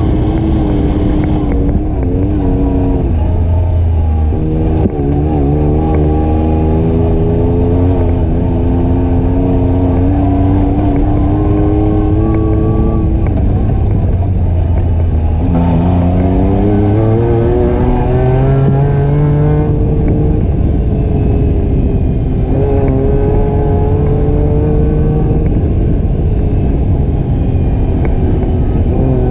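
ATV engine running under way, its pitch climbing as it accelerates and dropping as it eases off, several times over, above a constant low rumble.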